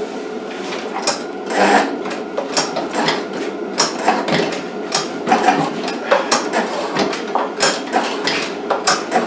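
Irregular metallic clicks and knocks from hands-on work on a lawn edger's trenching wheel and guard, over a steady background hum.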